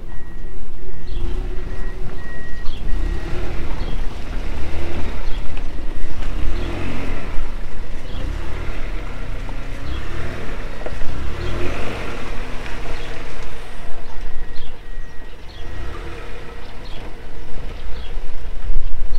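Small car's engine revving as it pulls up a steep concrete ramp, swelling up in two long pushes, over a steady low rumble.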